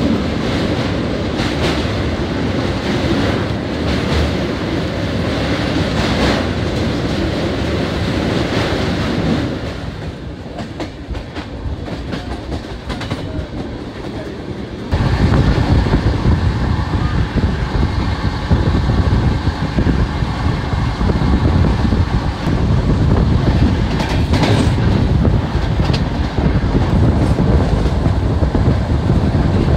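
Passenger train running, its wheels clattering over the rail joints, heard from inside the coach. The noise drops for a few seconds in the middle, then comes back suddenly louder about halfway through.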